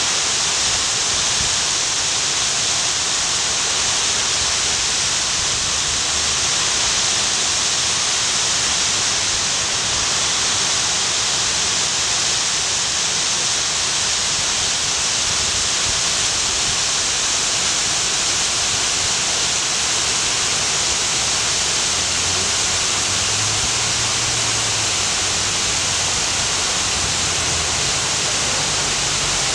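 Floodwater pouring over stone walls and terraced rock ledges, a steady loud rush of falling water.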